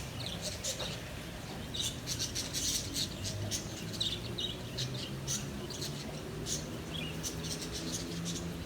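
Small birds chirping, with many short high chirps spread all through, and a faint low steady hum underneath from about three seconds in.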